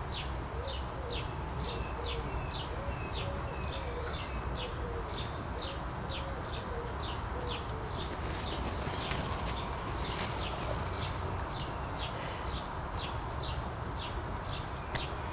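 A bird chirping over and over, short high calls at about three a second, over a steady low background hum.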